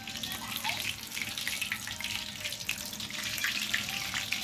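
Battered shrimp fritters (bánh tép) deep-frying in a wok of hot oil: a steady crackling sizzle.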